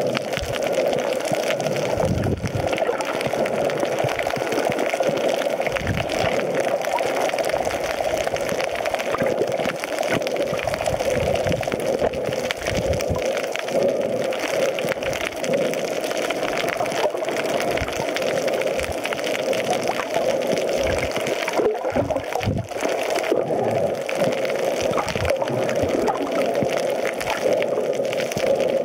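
Underwater ambience picked up by a camera over a coral reef: steady water noise with constant fine crackling and a few low thumps.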